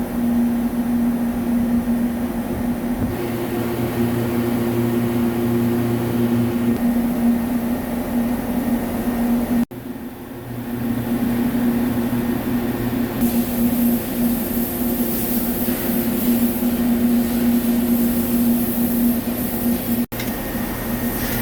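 CNC vertical lathe running while machining an aluminium part: a steady mechanical hum with a few fixed tones. A high hiss joins in about halfway through, and the sound drops out for an instant twice, about ten seconds in and near the end.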